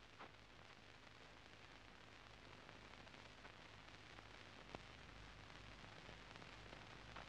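Near silence: a faint steady hiss and low hum, with a small click about a quarter second in and another a little before five seconds.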